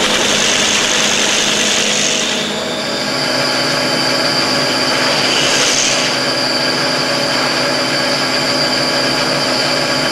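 Signature folder-gluer running steadily: a continuous mechanical whir from its belts and rollers with a steady high-pitched whine that steps up slightly about two and a half seconds in.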